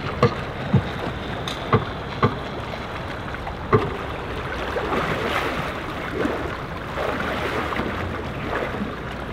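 Water sloshing and lapping, with wind buffeting the microphone and a few sharp knocks in the first four seconds.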